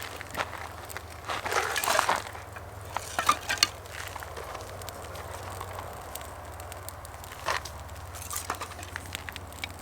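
Small birch-wood campfire, newly lit, catching and crackling with scattered sharp snaps. A few louder crunches of wood come in the first few seconds.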